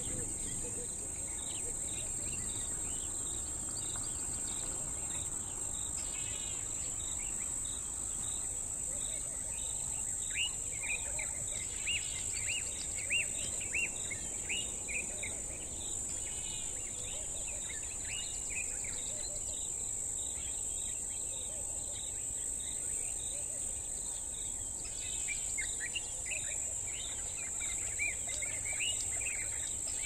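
Bushveld dawn ambience: a steady, high-pitched insect drone with birds calling over it in runs of short, quick notes, busiest about ten seconds in and again near the end.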